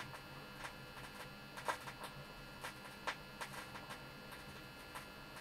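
Vinyl LP surface noise in a silent stretch of the groove: scattered clicks and pops over a faint steady hum.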